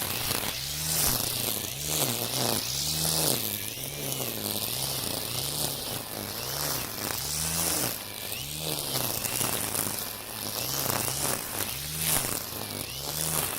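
Makita 40V cordless brushcutter spinning Oregon Flexiblade trimmer line through dense weeds. Its motor pitch rises and dips in a steady rhythm, a little more than once a second, as each sweep loads the line. Constant high-pitched hiss over it.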